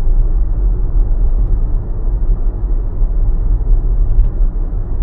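Steady low road and tyre rumble inside the cabin of a moving Tesla electric car, with no engine sound.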